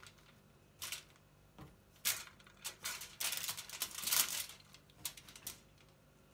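Kitchen foil and plastic wrap crinkling and rustling as hands work a whole fish on it, in short irregular bursts, loudest about four seconds in.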